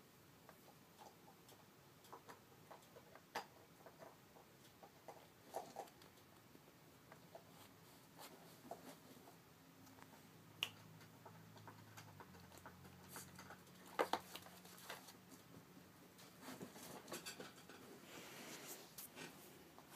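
Cat chewing and gnawing on a shoe: faint, scattered soft clicks and rustles, with a few sharper clicks and a bigger one at the very end.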